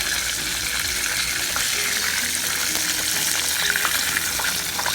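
Battered chicken deep-frying in hot canola oil in a pot, a steady sizzle with crackling. There are a few short clicks as a piece stuck to the pot is worked loose.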